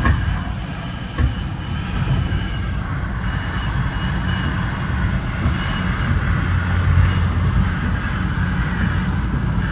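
Steady rumble of a moving Metra commuter train heard from its leading car, wheels running on the rails, with a single knock about a second in.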